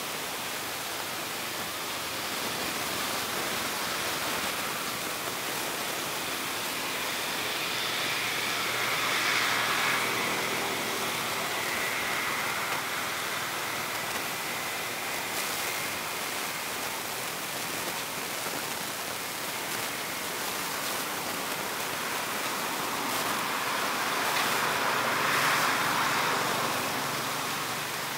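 Steady hiss of background noise that swells twice, about a third of the way in and again near the end.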